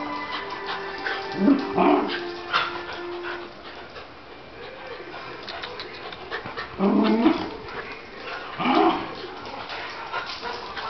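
Two dogs play-fighting and barking, with short, sharp barks and yips. The loudest come in bunches about two seconds in, seven seconds in and nine seconds in.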